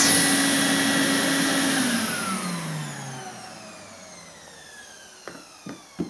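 Shop vacuum running, then switched off: its motor whine falls steadily in pitch and fades as the motor spins down. A few light knocks of the hose being handled come near the end.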